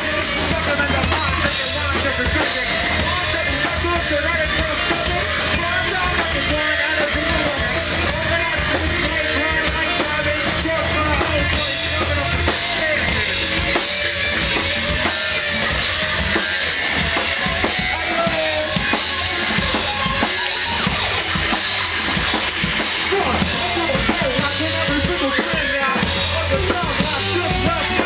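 Live rock band playing, the drum kit prominent with bass drum and snare.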